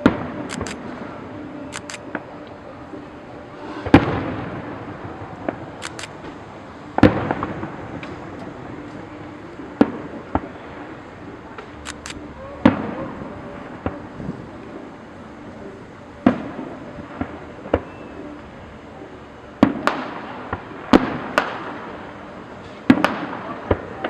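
Aerial fireworks shells bursting: a loud bang every two to three seconds, each trailing off in a rumbling tail, with lighter crackles and pops in between.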